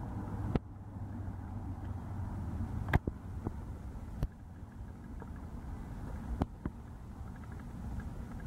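Low, steady rumble of a Boeing 737's twin jet engines climbing away after takeoff, with four sharp clicks over it.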